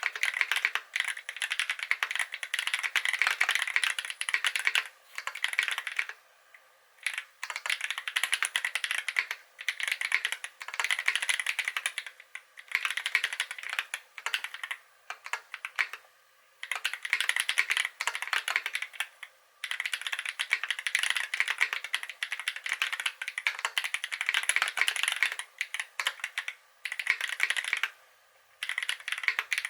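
Typing on a KBD8x MKII mechanical keyboard with lubed Holy Panda tactile switches on a brass plate: fast runs of key clicks lasting a few seconds each, broken by short pauses.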